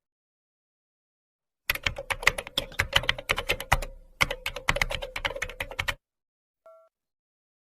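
Keyboard typing sound effect: a fast run of key clicks, with a short pause partway through. A brief electronic beep follows near the end.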